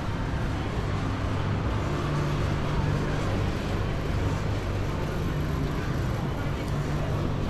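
Urban street ambience: an even wash of outdoor noise over a steady low hum, like nearby engine or machinery drone.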